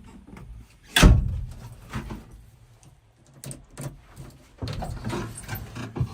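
JCB 3DX backhoe loader working a load of mud into a dump truck: one heavy thud about a second in, then a few lighter knocks. Near two-thirds through, the machine's diesel engine comes up to a steady low running sound.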